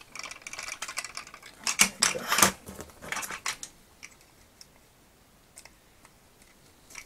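Hard plastic clicking and rattling as small painted wing-gun pieces are pushed into the wings of a vintage Kenner M.A.S.K. Thunderhawk toy car. A burst of sharp clicks for the first three seconds or so, then only a few faint taps.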